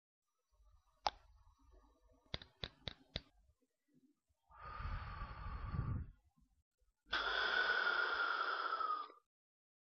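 A plastic metered-dose asthma inhaler being handled: one sharp click, then four quick clicks. Next comes a breath out, then a long, deep breath in through the inhaler's mouthpiece lasting about two seconds, the in-breath that goes with pressing the inhaler.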